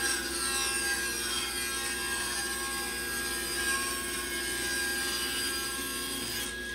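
Table saw running steadily while its blade rips a hardwood board.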